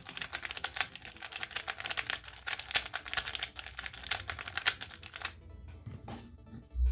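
MoYu RS3M 2020 speedcube turned rapidly by hand: a fast, dense run of plastic clicks and clacks from the turning layers that stops about five seconds in. Near the end comes a single dull thump.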